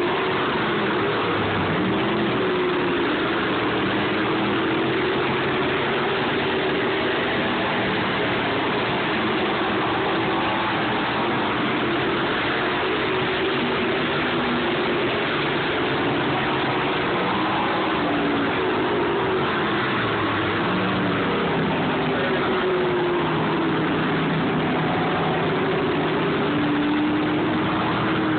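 Sportsman stock cars racing on a dirt oval: several race-car engines running hard together, their pitch rising and falling continually as the cars throttle through the turns and pass by.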